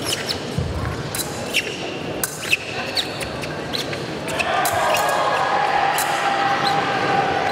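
Épée bout on a piste in a large hall: sharp clicks, thuds and short squeaks of blades and fencers' shoes. About four seconds in, a louder steady sustained sound sets in.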